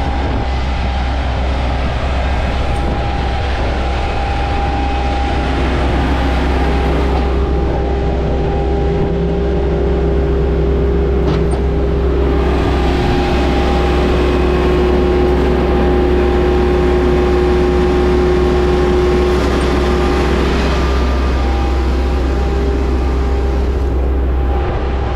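Concrete pump and ready-mix mixer truck running steadily together, with concrete feeding from the truck into the pump's hopper.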